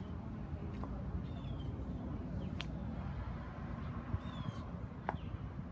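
Short, high descending bird chirps repeating over a steady low rumble like distant traffic, with a few sharp clicks.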